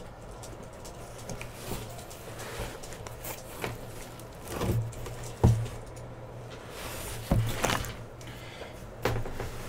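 Large cardboard boxes being set down and stacked on a table: several dull thumps and cardboard scrapes, the loudest about halfway through.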